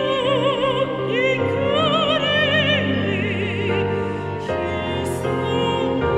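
Female soprano voice singing a slow melody in Japanese with wide vibrato on held notes, over a live orchestra's sustained accompaniment.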